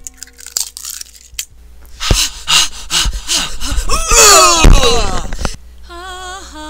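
Human voices making excited vocal noises: a few sharp clicks, then a loud stretch of shrieking and panting with quickly bouncing pitch. From about six seconds in, one voice holds a wavering hummed or sung note.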